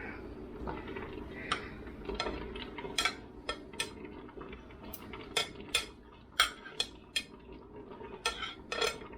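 Irregular sharp clinks and clicks of utensils and dishes against the stainless steel inner pot of an electric pressure cooker as pork chunks and their juices go in, over a low steady hum.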